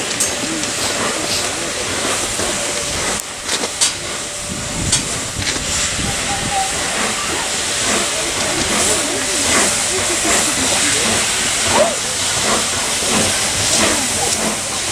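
Steam hissing steadily from Peppercorn A1 Pacific steam locomotive No. 60163 Tornado as it stands in steam, with a few short clicks.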